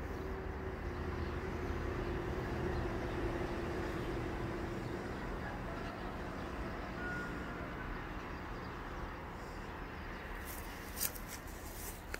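Steady outdoor background rumble with a low engine-like hum that fades out about five seconds in, and a few sharp clicks near the end.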